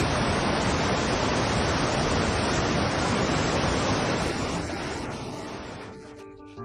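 Steady rushing of a swollen river in flood, its fast current running high. It fades out over the last two seconds as music comes in.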